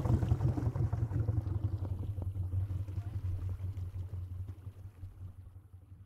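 Low, steady rumble of an idling boat engine, fading out gradually to silence.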